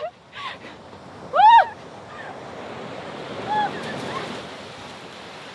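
Sea surf washing onto a sandy beach, a steady rush with some wind on the microphone. About one and a half seconds in, a single loud drawn-out shout rises and falls, and a few fainter distant calls follow.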